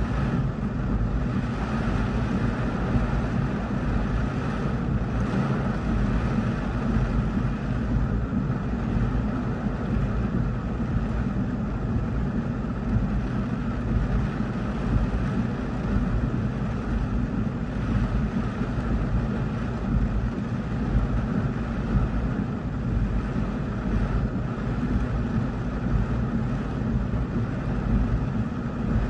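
Heavy rain with big drops pelting a car's roof and windshield, heard from inside the car, as a steady dense hiss with a deep rumble under it, along with gusting wind.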